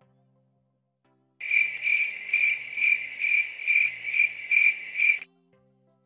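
'Awkward silence' cricket sound effect: a cricket chirping in an even rhythm of about two chirps a second for about four seconds. It starts about a second and a half in and stops abruptly.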